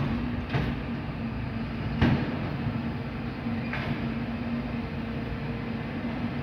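A MAN TGM 26.340 refuse truck's six-cylinder diesel engine running at a steady speed while its side-loader body works, with three knocks, the loudest about two seconds in.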